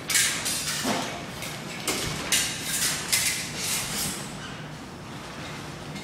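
Movement noise from kung fu sword-form practice on a wooden floor: a quick run of short swishes near the start and another from about two seconds in, with a couple of soft knocks, over a faint steady hum.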